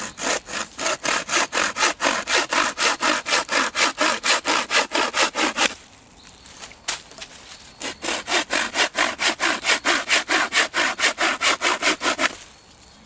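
A bow saw whose frame is a single bent branch of fresh beech, with a blade of about 50 cm, sawing through a thin wooden stake in quick, even back-and-forth strokes. The sawing pauses for about two seconds near the middle, then resumes.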